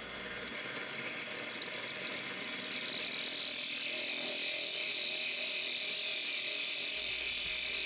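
Drill press running steadily at middle speed while a 1/2 inch diamond core bit cuts a hole in a glass bottle held under water, a high, even grinding hiss.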